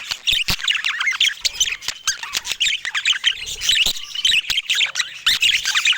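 Budgerigars chattering: a continuous warble of quick chirps, short squawks and rapid pitch glides, with scattered sharp clicks.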